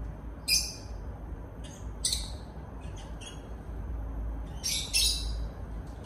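Lovebird giving short, high-pitched chirps, about five of them, two in quick succession near the end.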